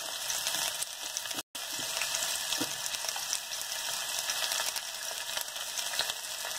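Chopped onion and green chilli sizzling in hot oil in a kadai, a steady frying hiss that drops out for a moment about a second and a half in.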